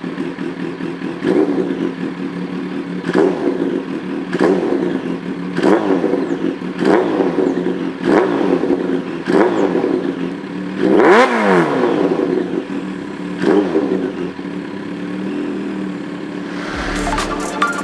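Supercharged Kawasaki H2-series inline-four motorcycle engine through an aftermarket Avionic V5 exhaust, revved in about ten short throttle blips from idle, roughly one a second, with the highest rev about eleven seconds in.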